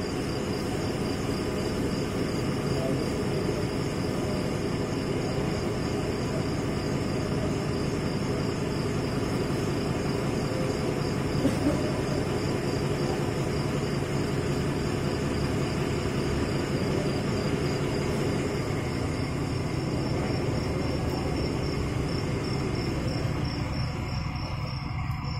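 Steady low background rumble with a thin, high, evenly pulsing trill over it, like crickets; the rumble thins near the end.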